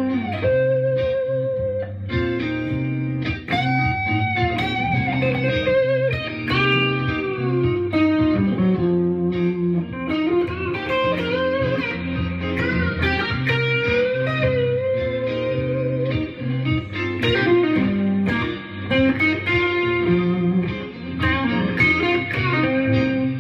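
Electric guitar playing a blues lead with string bends and vibrato on held notes, over a backing chord loop in C minor.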